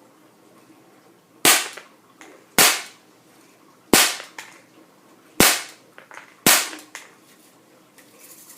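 Daisy Model 200 semi-automatic CO2 BB pistol fired five times, about one shot a second, each a sharp gas pop followed by faint ticks.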